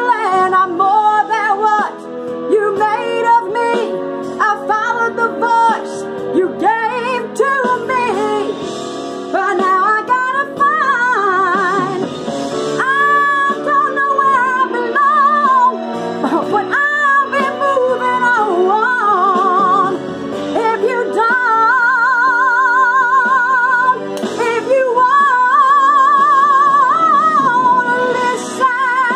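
A woman singing a power ballad full-voice, with long melismatic runs and then held high notes with a wide, even vibrato near the end.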